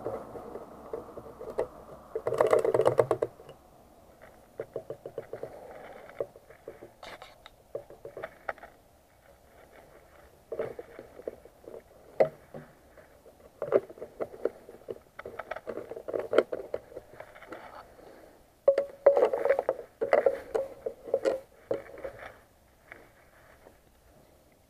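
Plastic fuel jug and its flexible spout being handled: irregular clicks, knocks and rustling, loudest about two to three seconds in and again near twenty seconds in.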